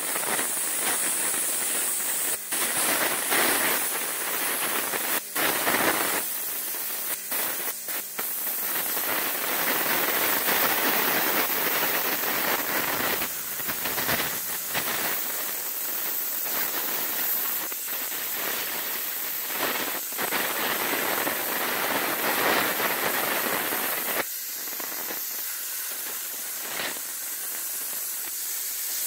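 Budget plasma cutter's torch hissing steadily as it cuts a hole through a steel car frame, with a few brief breaks and clicks. Near the end the hiss turns quieter and thinner.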